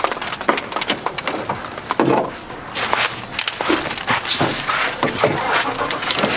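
Irregular crunching, clicking and knocking, a dense run of short sharp handling sounds.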